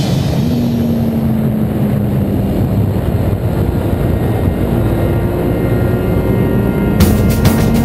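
Kawasaki Ninja sport motorcycle riding along the road, its engine running steadily under heavy wind noise on the microphone; the engine note sags a little, then rises about halfway through as the throttle opens. Music with drums cuts back in about seven seconds in.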